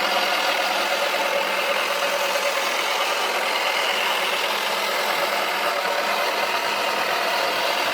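Toy washing machine running steadily on a spin, its small motor whirring and the plastic drum rattling with a rugby ball tumbling inside.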